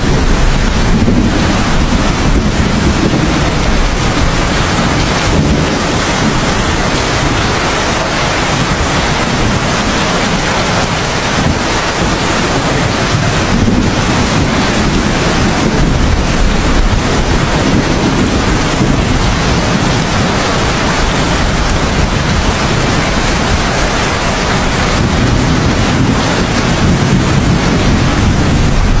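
Steady heavy rain, with low rolling thunder rumbling up three times: near the start, around the middle and near the end.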